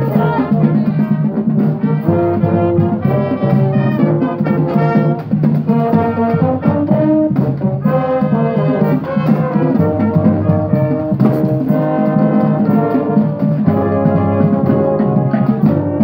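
Brass marching band playing a tune, with low brass carrying a bass line under the higher horns and marching drums beneath.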